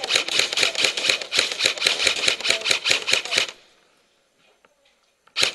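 Airsoft gun firing fully automatic, a rapid even stream of sharp shots at about a dozen a second, stopping about three and a half seconds in. Another burst starts right at the end.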